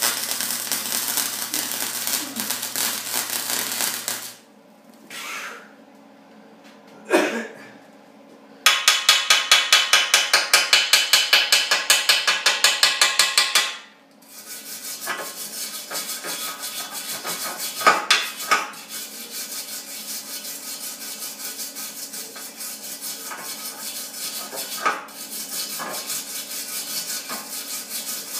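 Flux-core wire welder arc crackling over a steady electrical hum on a snowmobile exhaust pipe, cutting off about four seconds in. After a pause with a single knock, there are rapid, loud scraping strokes on the steel pipe, about six a second, for about five seconds. Then come slower, quieter rubbing and scraping strokes with a few sharp clicks.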